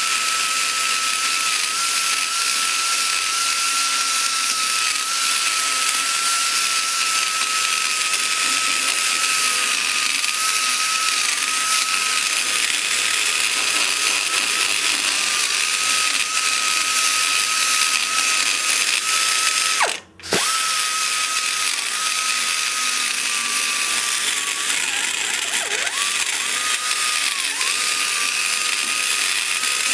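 Die grinder spinning a small burr against the aluminum exhaust port of a small-block Chevy cylinder head, porting around the valve guide. It gives a steady high whine whose pitch dips slightly as the burr bites, and about two-thirds of the way through it cuts out for a moment and starts again.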